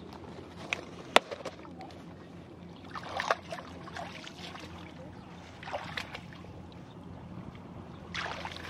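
Legs wading through shallow, muddy pond water: a slosh and splash every couple of seconds as each step goes in. There is a sharp click about a second in.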